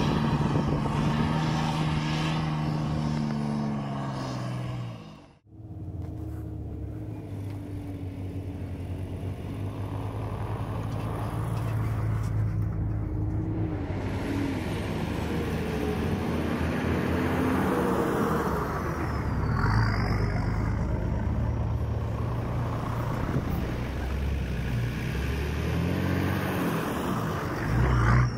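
Four-wheel-drive vehicle engine running while driving, a steady drone that cuts out briefly about five seconds in and then carries on with its pitch rising and falling.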